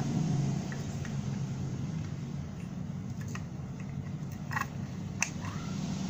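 Scattered small clicks and taps from handling the amplifier board and its cables, over a steady low hum.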